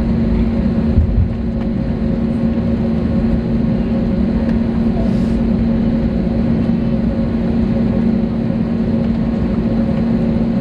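Jet airliner cabin noise while taxiing: a steady drone of the engines at idle with a constant low hum. There is a single low thump about a second in.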